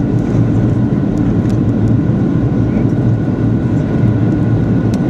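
Steady in-cabin noise of a Boeing 737-800 in flight: the CFM56 engines and the airflow over the fuselage make a loud, even rush, with a thin steady whine above it.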